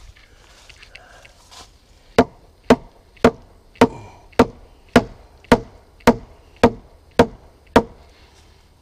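Eleven sharp knocks on wood in a steady rhythm, a little under two a second, starting about two seconds in, from work on a wooden 4x4 post being set upright in its hole.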